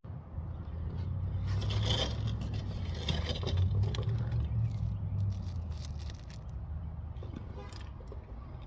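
Scraping and rustling with scattered light clicks as parts and fasteners are handled, over a low hum that fades away about five to six seconds in.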